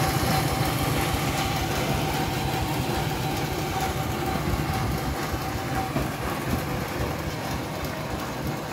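Engine of a homemade bandsaw sawmill running steadily with a low throbbing beat, a thin steady whine over it that fades out about six seconds in.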